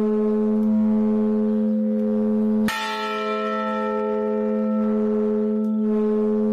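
Large church bell struck by its clapper, worked by ringers pulling ropes, ringing on with a long steady hum of several tones. One hard strike lands a little under three seconds in and renews the ring.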